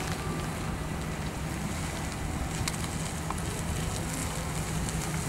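Chevrolet Express ambulance van's engine running steadily at low speed as it rolls slowly forward, with wind buffeting the microphone; no siren is sounding.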